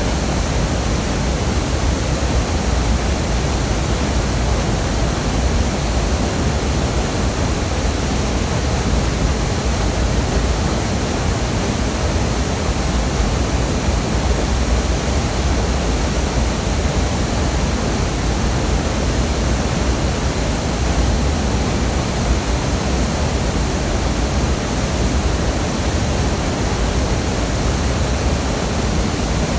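Waterfall roaring steadily, a loud unbroken rush of falling water with a deep rumble underneath.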